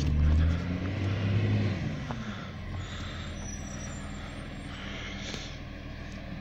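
Recycling truck's engine running, loud at first, its pitch falling and fading over the first two seconds or so, then settling to a steady, quieter low hum.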